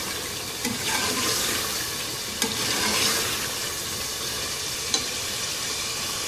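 Potatoes and beef masala sizzling as they fry in a pressure cooker pot, stirred with a steel ladle that scrapes and clicks against the pot a few times. This is the bhuna stage, the potatoes being fried in the oil and spice paste.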